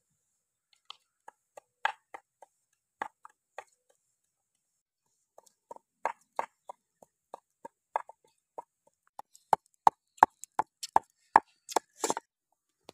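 Knife chopping on a wooden board: scattered sharp knocks at first, then a quicker, louder run of about two to three chops a second near the end.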